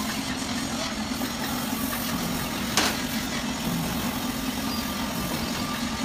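Paint spray gun hissing over the steady hum of the air compressor that drives it, with one sharp click near the middle.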